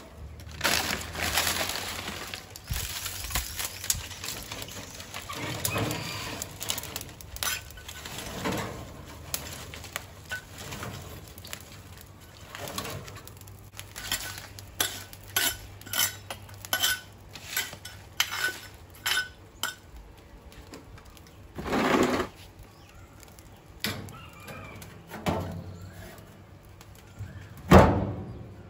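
Clatter, knocks and clinks as wood is handled and added to the fire of a wood-fired smoker. A run of about a dozen evenly spaced sharp clinks comes in the middle, then two heavier knocks, the last one the loudest, near the end.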